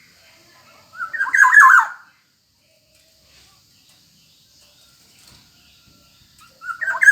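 Black-naped oriole (kepodang emas) calling. Two short, loud phrases about five seconds apart, each lasting about a second: the first comes about a second in, the second near the end.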